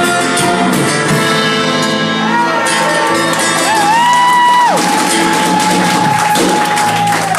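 Live band with a female singer, guitar and drum kit playing the end of a song. The singer slides up into a long, steady held note for the last three seconds or so.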